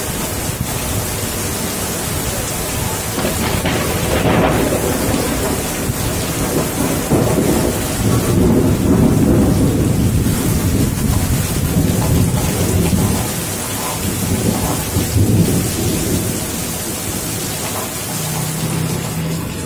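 Heavy rain falling steadily, with deep rumbles of thunder that swell and fade several times, strongest a third to halfway through.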